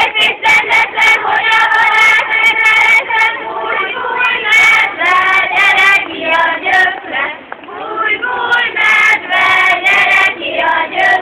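A group of girls' and young women's voices singing a folk song together, as a ring-dance song.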